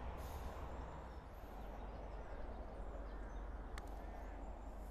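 Steady low rumble of road traffic from a nearby main road, with a single sharp click of a putter striking a golf ball a little under four seconds in.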